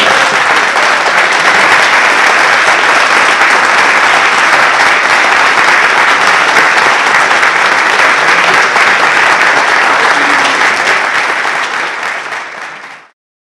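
Audience applauding, loud and steady, tapering off near the end before cutting out.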